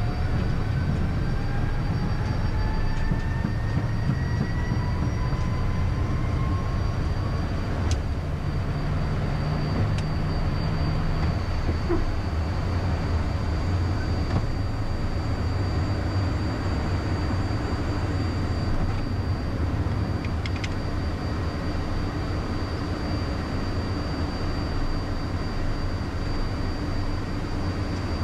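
Cockpit noise of a Beechcraft Premier I jet on its takeoff roll, liftoff and initial climb: a steady rumble of its twin turbofans at takeoff power and the rushing air. A faint whine rises in pitch over the first several seconds, and a thin steady high tone runs throughout.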